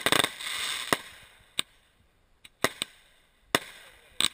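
Consumer aerial fireworks going off. A quick cluster of cracks with a hissing, crackling spray comes first, then about seven separate sharp bangs at uneven intervals as shells launch and burst overhead.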